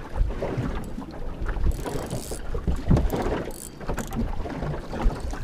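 Wind buffeting the microphone over sea water slapping against the hull of a small wooden boat, uneven and gusty.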